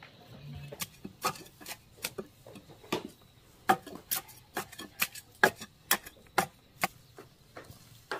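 Loose soil being rammed down around the base of an upright wooden pole with a stick. It makes a series of sharp, uneven taps and light thuds, roughly two a second.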